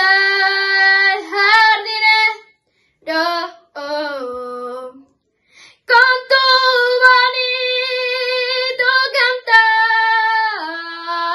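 A girl of about ten singing a Canarian isa unaccompanied. She holds long notes with ornamental slides between them and pauses twice for short breaths before a long held phrase.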